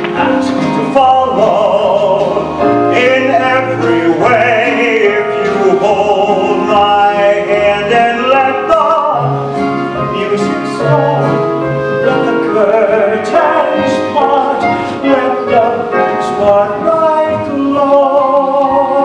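Show-tune music from a stage musical's song-and-dance number, a full band playing a melody with wavering, held notes.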